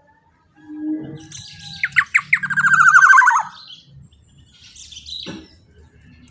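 Black-naped oriole (kepodang) calling loudly: a rapid run of repeated notes that slides down in pitch at the end, then a shorter call with a sharp downward sweep about five seconds in.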